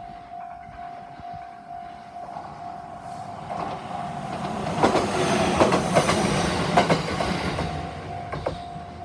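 Level-crossing warning bell ringing in quick, even repeats while an Iida Line train passes over the crossing. The train grows louder about three seconds in, its wheels clacking over the rail joints loudest in the middle, then fades as the bell keeps ringing.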